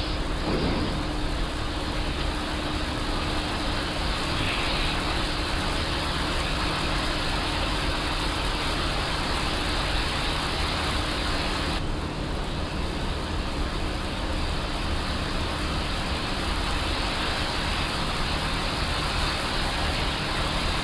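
Steady flight-deck noise of an Airbus A350-900 in the climb: air rushing past the cockpit over a low, steady hum.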